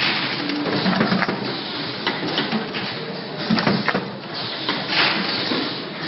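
Rotary lotion filling, plugging and capping machine running, with frequent irregular mechanical clacks and knocks over a steady hum.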